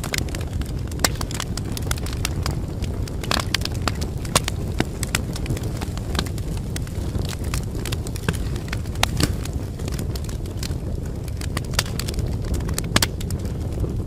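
Wood fire crackling in a fireplace: irregular sharp pops and snaps, a few of them louder, over a steady low rumble.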